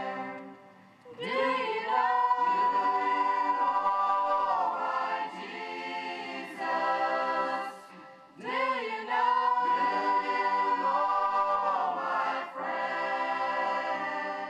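A choir of young women singing a hymn in parts, in two long phrases with held notes and a short breath between them just past the middle.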